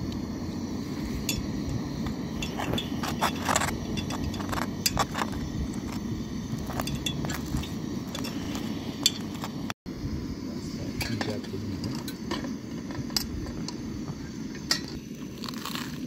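Metal clinks, knocks and scrapes of a knife and a cast-iron grill pan as a filled bread toasts on it, over a steady low rushing noise. Near the end there is a crunch as the crispy toasted bread is bitten.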